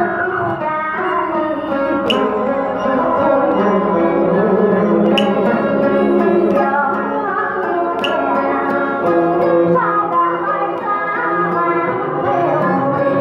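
A woman singing a Vietnamese ballad through a microphone over instrumental accompaniment with plucked strings. A sharp percussive tap comes about every three seconds.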